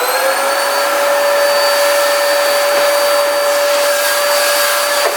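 Vacuum cleaner running steadily, its motor just switched on and settled into a high steady whine over a rush of air.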